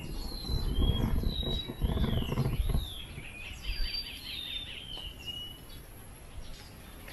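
Birds singing: clear whistled notes sliding up and down, with a quick trill around the middle, over a low rumbling noise that is loudest in the first three seconds.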